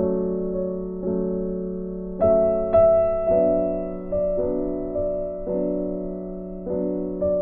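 Background music: a keyboard playing slow, sustained chords, with a new chord struck about once a second.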